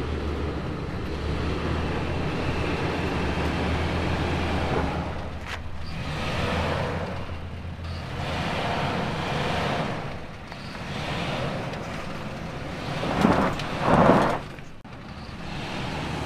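Toyota Tacoma pickup's engine running at low revs as the truck crawls slowly over a rocky dirt ledge. The noise swells and fades, with two louder surges near the end.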